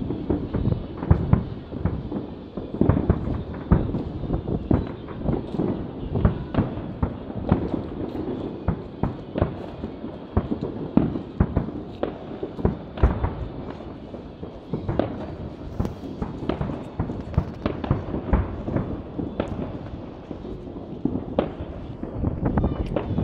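Fireworks going off: aerial shells bursting in a dense, irregular run of bangs and crackles, at times several a second.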